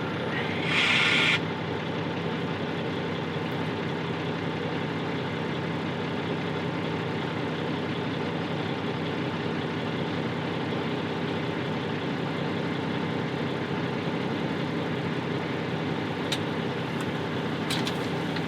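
Semi-truck diesel engine idling steadily, heard from inside the cab, with a short loud hiss of air about a second in and a few light clicks near the end.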